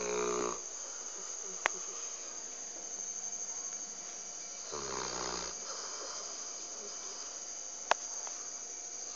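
Pit bull snoring in its sleep after a meal, with slow, buzzing snores about five seconds apart: one trails off at the start and another comes about five seconds in.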